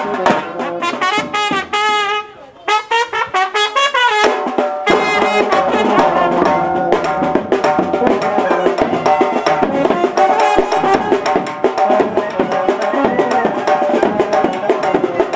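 Band music: horns playing a wavering melody over a drum beat.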